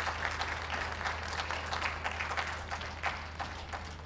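Audience applause, thinning out and fading over the few seconds, over a steady low hum.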